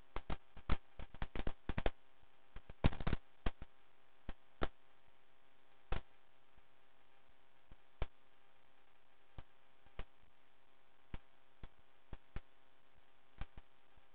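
Irregular clicks and crackles on a quiet aircraft radio/intercom audio line over a faint steady hum. The clicks come thick in the first couple of seconds and again briefly around three seconds in, then thin out to single clicks about once a second.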